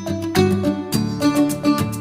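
Background music: upbeat plucked acoustic guitar with a steady strum.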